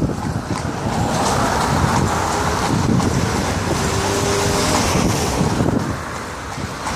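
Traffic on a wet street heard from a moving carriage: tyre hiss and engine rumble that swell and then ease near the end as a van passes close by, with wind buffeting the microphone.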